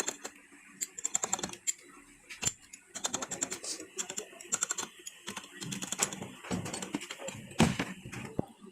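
Ratchet wrench clicking in quick runs, with scattered metallic clinks and knocks of tools against the engine.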